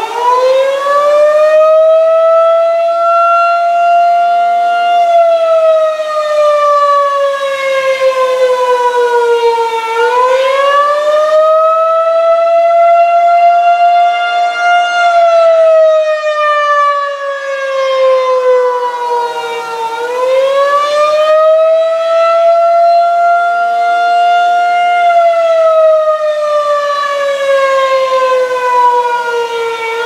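Federal Signal 2001-DC rotating electromechanical warning siren sounding the attack signal. Its single loud tone climbs to full pitch in the first few seconds, then falls and rises slowly in cycles of about ten seconds, swelling and fading as the rotating horn turns.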